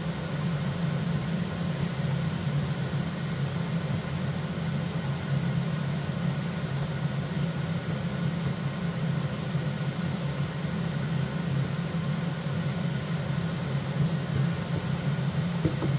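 A steady low hum with an even hiss over it: chicken thighs frying in hot olive oil in a frying pan as more pieces are laid in.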